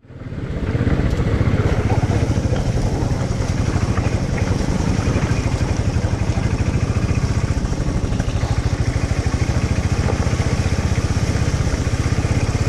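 Motorcycle engine running steadily with a fast, even throb. It fades in over about the first second.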